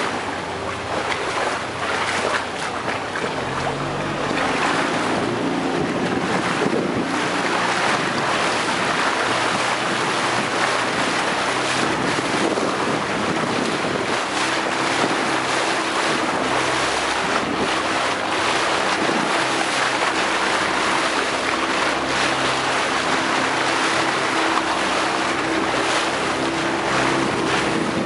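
A small motorboat underway: its engine runs steadily under a constant rush of water splashing past the hull and wind on the microphone. The engine hum grows clearer about halfway through.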